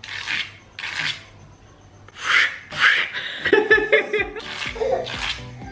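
People laughing: a run of short breathy bursts, with a voiced stretch of laughter about midway through.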